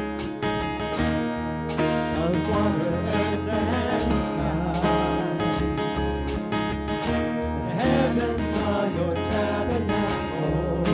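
Live contemporary worship band playing a song: acoustic guitar over bass and a steady beat, with voices singing.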